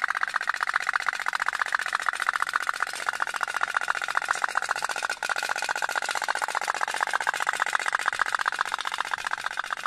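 Otok-otok pop pop boat's little steam engine running, a fast, steady putt-putt.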